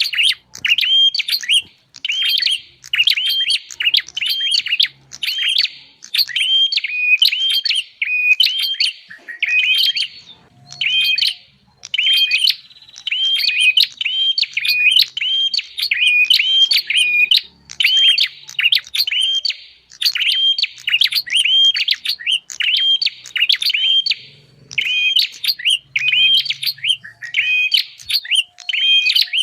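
Prenjak (prinia) calls used as a bird lure: loud, rapid chirping phrases of a few sharp notes each, repeated over and over with only brief pauses between bursts.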